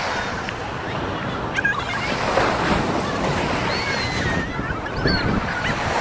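Ocean surf washing steadily on a beach, with wind buffeting the microphone. Over it, in the middle, come several thin, high, wavering cries.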